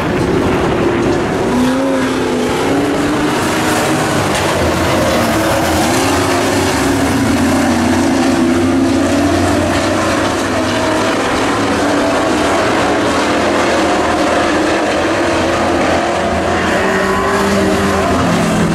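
Engines of several dirt-track race trucks running hard around the oval. Their pitches rise and fall as the trucks accelerate and back off through the turns.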